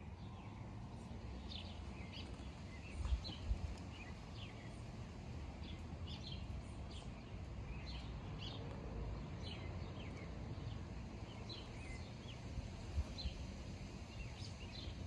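Birds chirping outdoors: short, falling chirps repeated every half second or so over a steady low rumble of outdoor background noise. A few low thumps come about three seconds in and again near the end.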